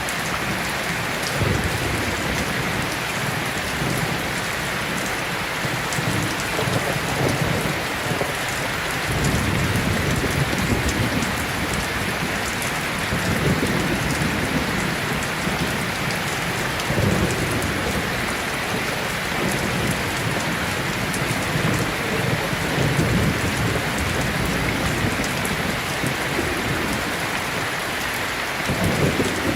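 Steady heavy rain hissing and pattering, with low rolls of thunder that swell and fade several times.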